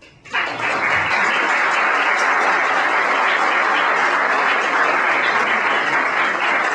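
An audience applauding, breaking out suddenly just after the start and then holding steady.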